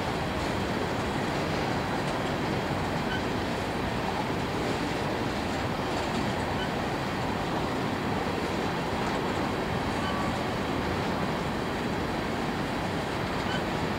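Empty coal hopper cars of a freight train rolling past: a steady, even rumble of wheels and cars on the rails.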